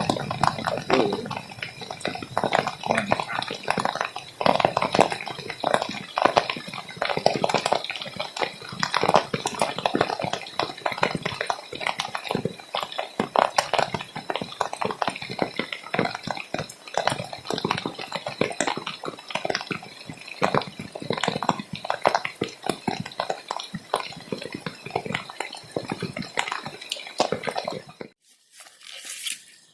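Heavy rain pattering and splattering close to the microphone, a dense, irregular patter of drops that stops abruptly near the end.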